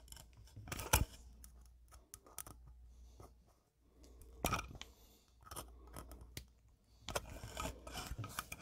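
Metal wire stripper clicking and scraping against solid copper wire as the bare ends are bent into hooks for a switch's screw terminals: a few sharp clicks, then a quicker run of clicks and scrapes near the end.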